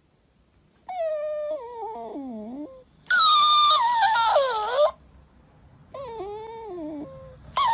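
A dog howling in three long, drawn-out calls, each sliding down in pitch, with a fourth beginning at the end.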